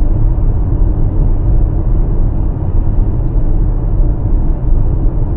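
Steady road rumble inside a Subaru's cabin while it cruises along an open highway: tyre, engine and wind noise with a strong low rumble.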